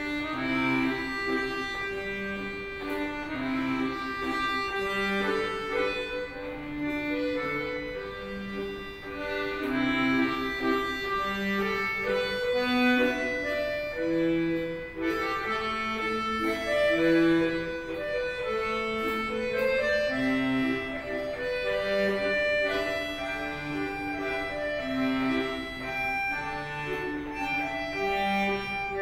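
Piano accordion playing a solo tune: a melody on the right-hand keyboard over an even, alternating bass-and-chord accompaniment from the left-hand buttons.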